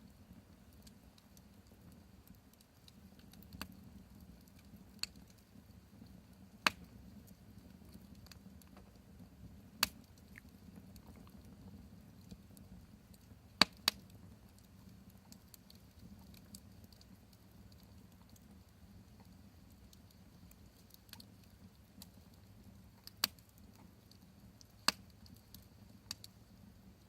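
Wood campfire crackling, with sharp pops coming irregularly, a few seconds apart.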